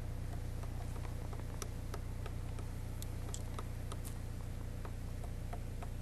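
Scattered sharp clicks at irregular intervals, about fifteen over several seconds, over a steady low hum.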